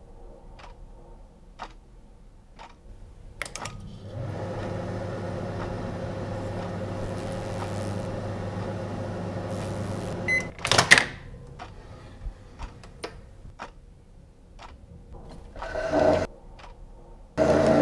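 Microwave oven running with a steady hum for about six seconds. It stops with a short beep, followed by a clatter. Faint ticking goes on about once a second throughout, and near the end something is dragged twice, like a chair scraping across the floor.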